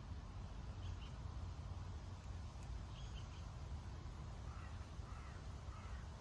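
Steady low background rumble, with a few faint bird calls in the distance, a couple early and a few more near the end.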